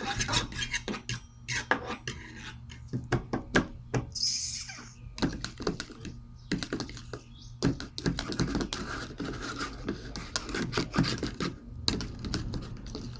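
Slime being stirred in a bowl: irregular clacks and scraping of the stirring utensil against the bowl, with a brief hiss about four seconds in.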